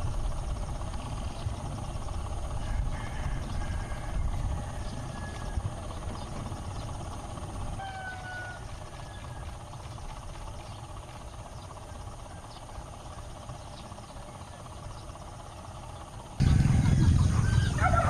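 Low, steady rumble of an erupting volcano, with faint bird calls over it; near the end the rumble becomes abruptly louder.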